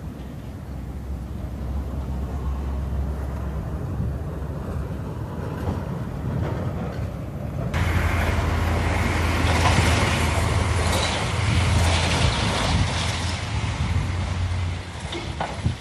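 Low, steady rumble of a motor vehicle engine. About halfway in, a louder broad hiss sets in suddenly over a stronger rumble.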